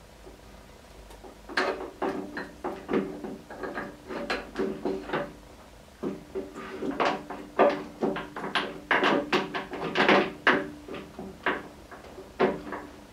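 Irregular metallic clinks and knocks, several a second, each with a short ring, as steel parts at the spindle end and gear train of a Standard Modern 10-inch lathe headstock are worked by hand and with a tool. The knocks start about a second and a half in, are loudest near the middle, and die off near the end.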